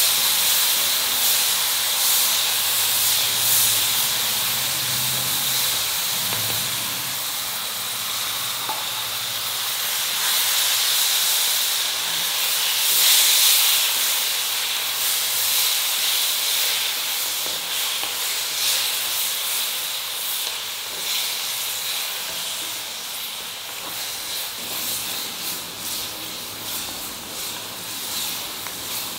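Chopped tomatoes, mint leaves and shallots sizzling and hissing in hot oil in a stone pot as they are stirred, with steady spitting crackle. The hiss peaks about 13 seconds in as a burst of steam rises off freshly added tomatoes, then gradually dies down as they soften.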